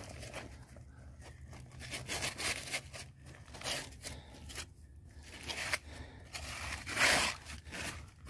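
Hands working in mud and shallow water to bed a trap: irregular splashes, scrapes and rustles, the loudest about seven seconds in.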